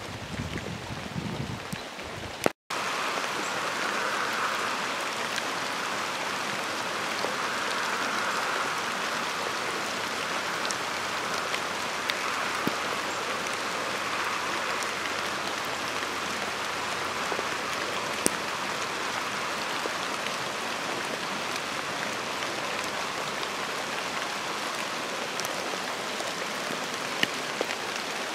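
Steady rain falling: an even hiss with scattered louder ticks of drops. The sound breaks off for an instant about two and a half seconds in, then carries on unchanged.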